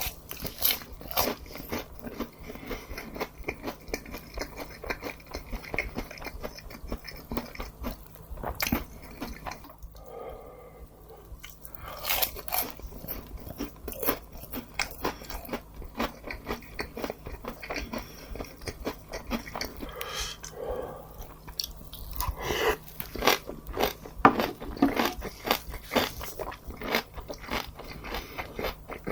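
A person chewing and crunching food close to the microphone, with many quick, irregular crisp bites and crackles.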